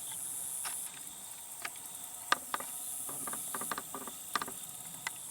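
Insects buzzing in a high-pitched chorus that comes in stretches of about a second with gaps between, over scattered sharp clicks, the loudest a little past two seconds in.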